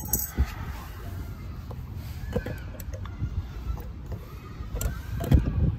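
Wind rumbling on the microphone, with scattered small knocks and scrapes from handwork, and a louder thump about five seconds in.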